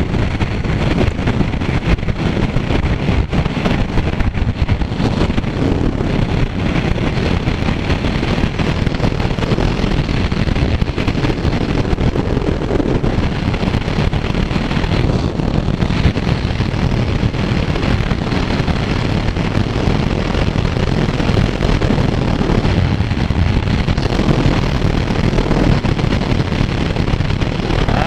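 Kawasaki Z900 motorcycle running at highway speed, with wind noise on the microphone mixed into the engine's sound. It holds steady at the same level throughout.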